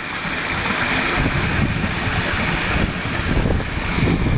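Garden pond waterfall splashing steadily over limestone rocks, with wind buffeting the microphone as a heavy low rumble from about a second in.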